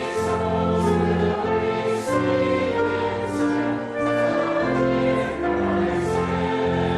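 Choir singing, with long held chords that change every second or so.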